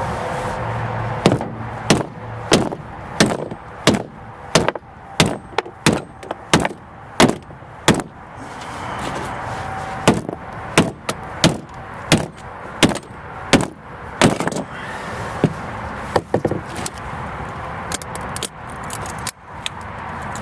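Sledgehammer beating on a microwave oven transformer's steel laminated core: a long series of sharp metallic blows, about one and a half a second, to break the brazed joints and knock the I-piece off the E-core. Near the end the blows thin out into lighter, irregular knocks.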